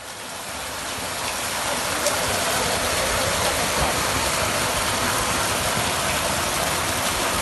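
Water from a DC solar submersible pump gushing out of a pipe outlet and splashing into the water of a concrete tank, a steady rushing noise that builds up over the first second or so. The strong flow shows the pump delivering good pressure.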